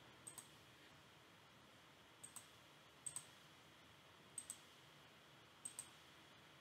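Computer mouse button clicks, about five faint double ticks spaced a second or so apart, each a press and release, over quiet room tone.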